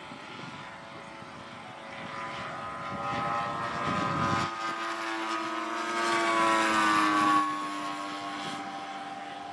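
Two radio-controlled model RV-4 planes flying by in formation, their engines and propellers giving a droning tone that grows louder. The pitch drops as they pass, loudest about seven seconds in.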